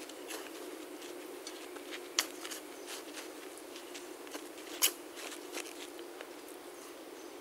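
Shovel working loose dirt at a distance: scattered light scrapes and taps of the blade, with two sharp clicks about two seconds in and nearly five seconds in, over a faint steady hum.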